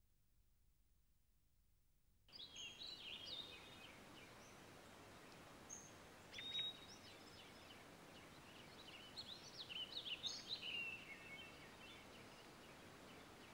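Near silence for about two seconds, then a steady background hiss sets in suddenly, with small birds chirping over it in short quick calls and downward glides, busiest just after the start and again in the later part.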